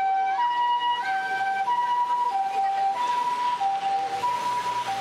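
Ambulance two-tone hi-lo siren alternating steadily between a lower and a higher note, each held a little over half a second, as the ambulance approaches.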